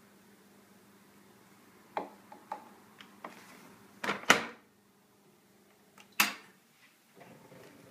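Front-loading washing machine being handled while it is loaded: a few light plastic clicks, then a loud double knock about four seconds in and another sharp knock about two seconds later.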